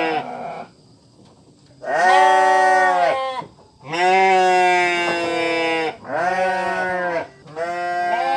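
Sheep bleating: a run of long calls, one after another with short gaps, the first cut short about half a second in and the last still going on at the end.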